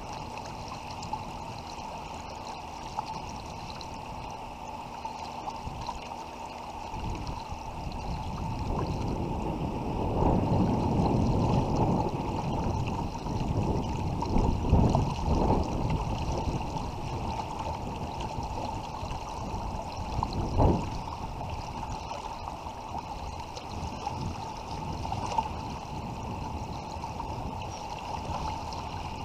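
River current rushing and gurgling around a kayak hull, louder for a stretch from about 9 to 16 seconds in, with a short sharp knock about 21 seconds in.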